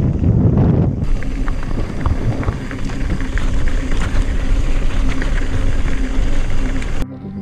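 Mountain bike rolling fast down a gravel track: wind rumbling on the camera microphone, tyres on loose gravel, and frequent clicks and rattles from the bike over stones. It cuts off suddenly near the end and gives way to soft music.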